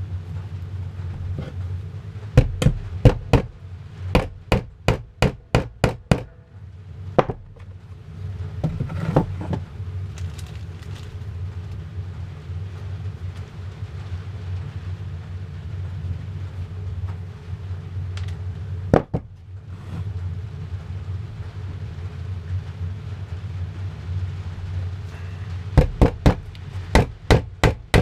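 Hammer driving small nails into a wooden beehive frame: two quick runs of taps, about three a second, with a few single knocks in between.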